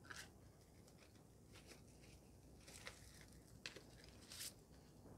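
Near silence broken by a few faint, scattered rustles and light clicks: a small organza drawstring bag being opened and a shower steamer taken out of it.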